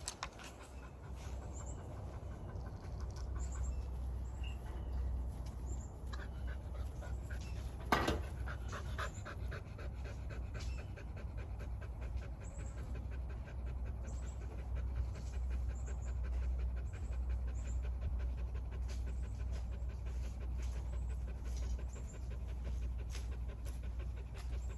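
Puppy panting steadily, over a steady low rumble, with one sharp knock about eight seconds in.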